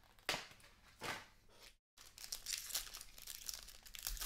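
Foil-wrapped trading card pack being crinkled and torn open by hand: two brief rustles, then a running crackly crinkle. The sound cuts out completely for a moment just before halfway.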